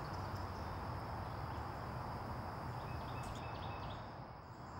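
Outdoor pond ambience: a steady high insect drone over a low background rumble, with a few faint short chirps from birds or ducklings near the end.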